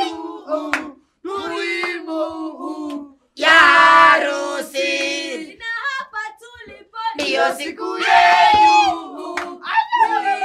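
A small group of people singing and cheering together in loud bursts, with short breaks between them.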